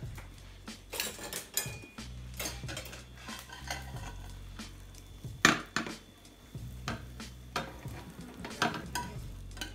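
Kitchen utensils scraping, tapping and clinking against a frying pan and a plate as a fluffy omelette is lifted out onto a serving plate. There are irregular sharp knocks, the loudest about five and a half seconds in.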